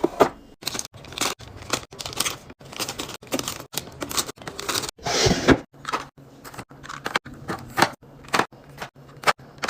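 Food packaging and containers being handled while restocking a fridge: plastic rustling and tearing, with light knocks as items are set down. Short bursts are broken by sudden brief silences, and a longer, louder rustle comes about halfway through.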